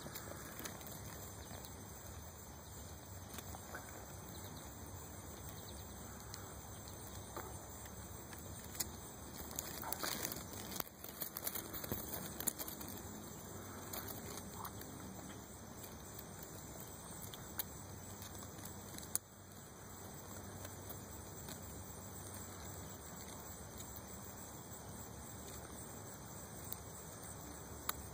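Faint steady background hiss, with a cluster of soft clicks and rustles about ten to thirteen seconds in.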